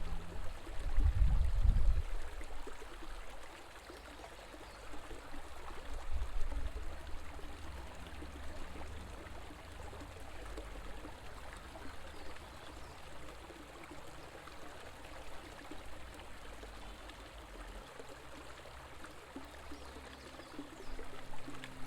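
River water flowing in a steady rush, with short low rumbles about a second in and again around six seconds.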